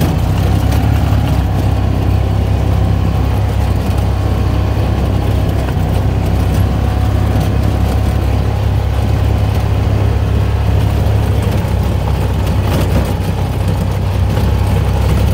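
Off-road vehicle engine running steadily as it drives a dirt trail, with a constant low rumble.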